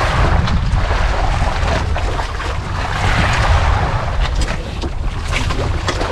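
Wind buffeting the microphone over the rush of sea water around a small boat, with a few light knocks.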